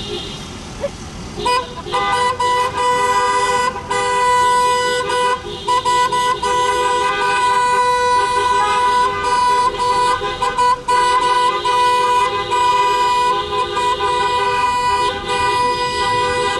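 Car horn held down in long, nearly continuous blasts of a steady two-note tone, starting about a second and a half in and broken only by a few short releases.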